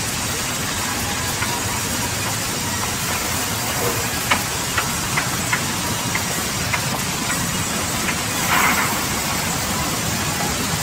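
Large industrial band-saw headrig and sawmill machinery running with a steady, loud hiss. A few sharp knocks come in the middle, and a brief louder rush of noise comes about eight and a half seconds in.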